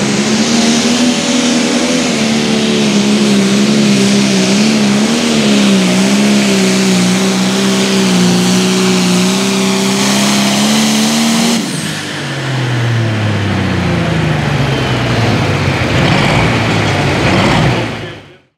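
Limited pro stock pulling tractor's turbocharged diesel engine at full power under load as it drags the weight-transfer sled, holding a high, slightly wavering pitch. About twelve seconds in, the throttle comes off and the pitch falls as the engine winds down, then the sound fades out near the end.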